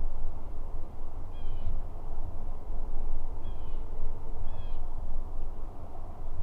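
A bird gives three short calls over a steady low rumble.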